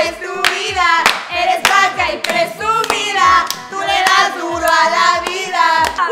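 A group of young people singing a song together, clapping along about twice a second.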